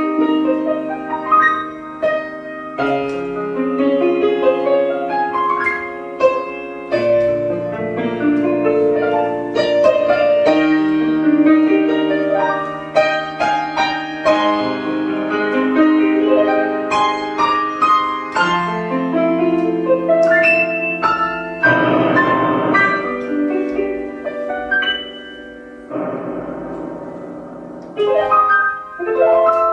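Piano playing a slow, lyrical adagio of sustained chords and melody, with a dense, loud flurry of rapid notes about two-thirds of the way through.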